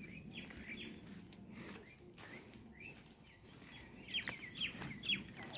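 Bird calls: a run of short chirps that fall in pitch, loudest and closest together near the end.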